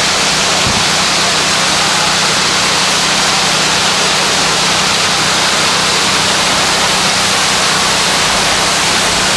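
Steady, loud hiss with no changes, with a faint low hum under it.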